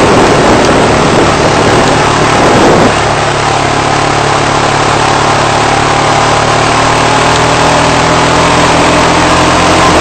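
ATV (four-wheeler) engine running steadily while the quad is ridden, with wind rushing over the microphone. About three seconds in the rush eases slightly and the engine's hum steadies.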